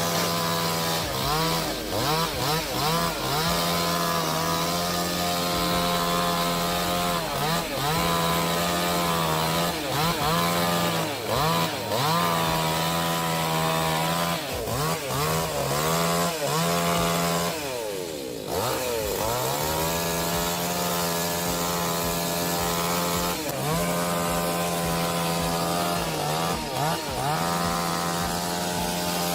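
Chainsaw running at high revs and cutting, its pitch dipping and recovering again and again. About two-thirds of the way through the revs fall away and then climb back up.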